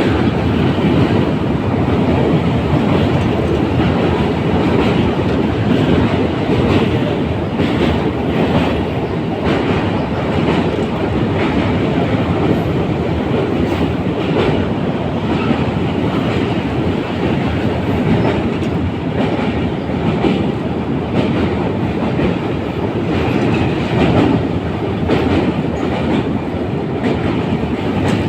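Train running over a railway bridge: a steady loud rumble with wheels clattering over the rail joints.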